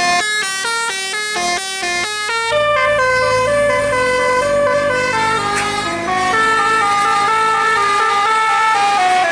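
Tour bus telolet horn, a multi-tone musical air horn, playing a tune: a quick run of stepping notes for about two and a half seconds, then a slower melody of held notes.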